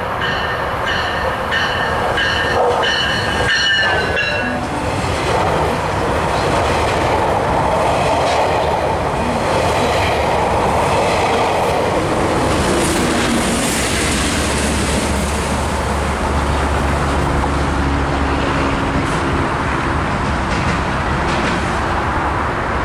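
GO Transit bilevel push-pull train passing along the station. A warning tone sounds in quick, even pulses for the first four seconds as the train approaches. Then the cars go by with a broad rush and clatter, and the diesel locomotive at the rear passes about halfway through; its engine hums low as it pulls away.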